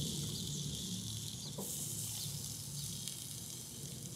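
Raw chicken drumsticks sizzling on the hot grates of a portable gas grill as they are laid down, a steady hiss with faint crackles over a low steady hum.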